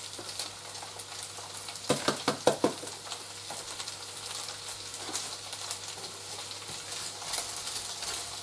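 Frozen butter vegetables sizzling and crackling in a hot frying pan with browned Schupfnudeln. A few louder knocks come about two seconds in as the last frozen pieces drop from the packet, and a wooden spatula starts stirring near the end.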